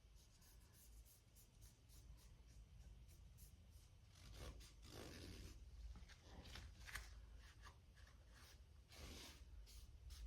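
Near silence with faint rubbing and light ticks of hands handling parts, a soft scraping smear about halfway and another near the end.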